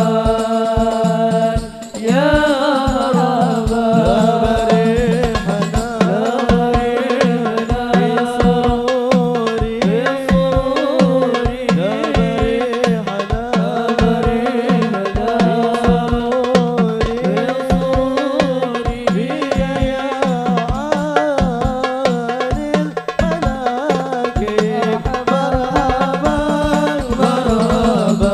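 Sholawat devotional singing in Arabic, a lead voice with a group, over hadroh frame drums (rebana) beating a fast, steady rhythm. The singing breaks off briefly just before two seconds in, then goes on.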